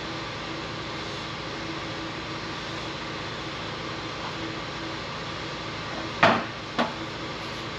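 Steady background hum, with two short knocks a little after six seconds in, about half a second apart, the first louder. These come from hands working a rubber elbow onto a metal coolant tube.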